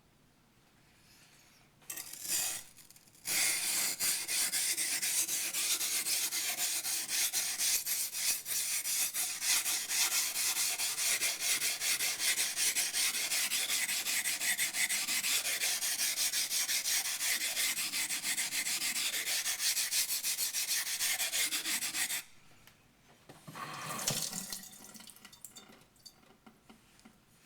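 Yanagi knife blade being ground on a wet waterstone: after a brief first pass, a continuous wet scraping of steel on stone for nearly twenty seconds, then a shorter, quieter pass near the end.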